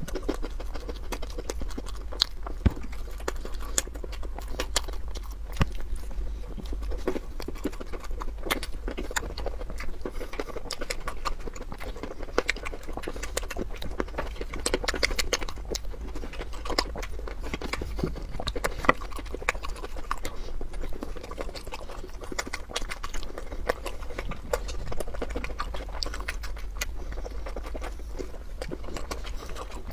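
A person eating: biting and chewing cherry tomatoes and soft filled buns, with many short wet clicks and smacks all through. A low steady hum lies underneath.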